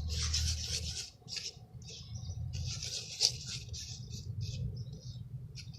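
Glue slime being stirred, giving wet, sticky squelches in short irregular bursts, with one sharp click about three seconds in.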